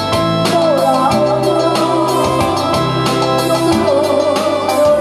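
Live music: a woman singing with a wavering vibrato into a microphone over a keyboard accompaniment and a steady drum beat.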